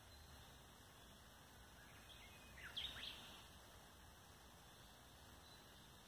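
A bird gives a short cluster of quick chirps, sweeping sharply down in pitch, about halfway through, over faint outdoor hiss.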